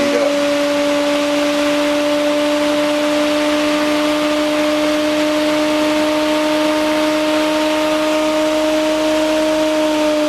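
Bedini-Cole style window motor running, with its recovered energy fed back into the circuit: a steady electrical whine with a strong pitched tone and overtones over a hiss. Its pitch creeps up slightly over the seconds.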